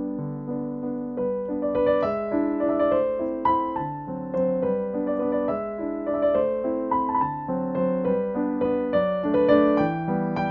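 Background piano music: a melody of single notes over held chords, played at an easy pace.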